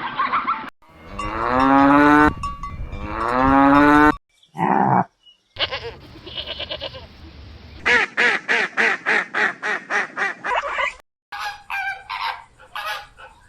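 A string of farm animal calls cut one after another. Geese honk briefly at the start, then a cow moos twice, each moo about a second and a half long, followed by shorter calls from other farm animals, including a fast pulsing call about five times a second.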